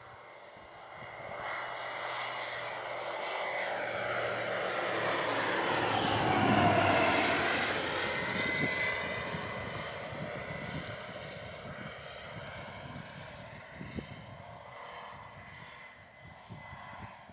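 Light propeller aircraft making a low flyby: the engine and propeller sound builds over several seconds, peaks about seven seconds in as the plane passes overhead, drops in pitch, and then fades slowly as it flies away.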